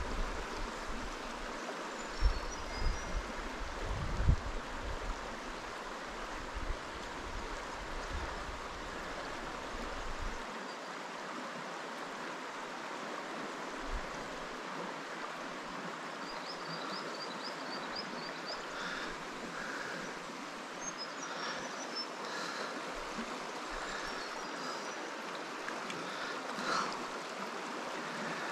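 Shallow river rushing steadily over rocks and gravel riffles. Low rumbles and bumps on the microphone in the first ten seconds, and a few faint high chirps.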